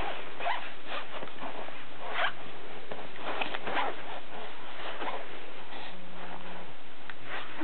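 A baby's short, faint breathy snuffles and sniffs, scattered through a steady hiss.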